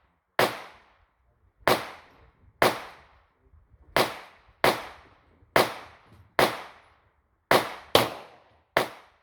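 Semi-automatic pistol fired ten times in quick succession, roughly a shot a second, each sharp crack trailing off in a short echo.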